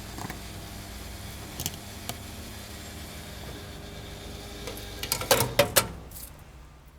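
Car refuelling at a fuel pump: a steady low hum with a couple of light clicks, then a quick run of loud sharp clicks and clanks about five seconds in, before the sound fades out.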